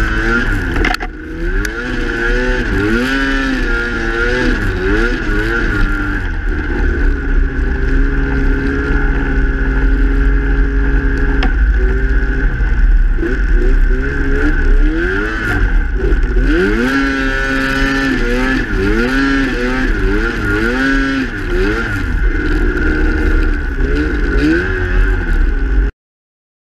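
Snowmobile engine revving up and down repeatedly while ploughing through deep snow, with a steady high whine over it and a heavy low rumble underneath. It cuts off suddenly near the end.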